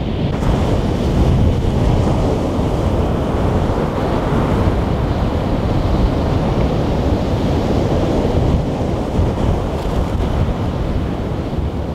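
Strong wind buffeting the microphone over the steady wash of surf breaking on the beach.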